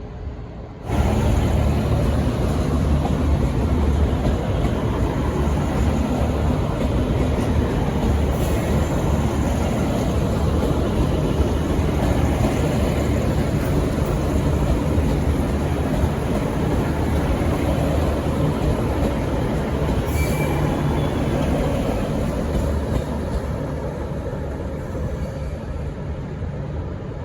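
V/Line N class diesel-electric locomotive passing close as it arrives, its diesel engine running with a steady low rumble over wheel and rail noise; it cuts in suddenly about a second in and eases off slowly near the end.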